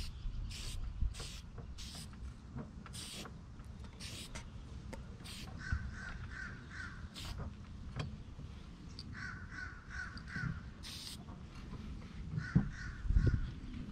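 An aerosol spray-paint can hissing in short bursts as paint is sprayed onto a metal panel. Three times, a crow caws in quick runs of about five caws.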